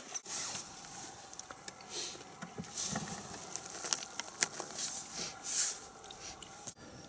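Irregular rustling and crinkling of plastic food bags and wrappers being handled, with scattered small clicks and scrapes.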